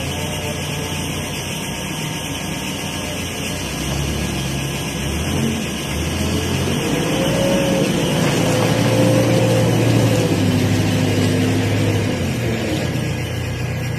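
Genie telehandler's diesel engine running, getting louder from about a third of the way in, with a whine that rises and holds for a few seconds near the middle.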